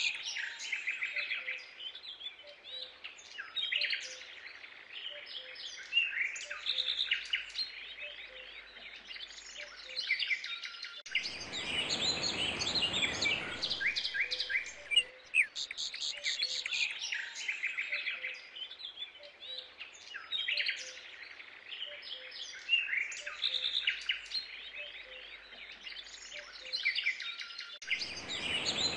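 Birds chirping and singing, a dense run of short high calls throughout, with a rushing noise swelling in for about three seconds near the middle and again near the end.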